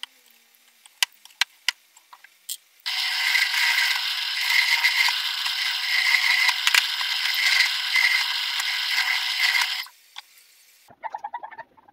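Bench drill press boring into a pine board: a steady, even cutting noise for about seven seconds that stops abruptly. A few light clicks come before it as the board is set in place, and some light clatter follows near the end.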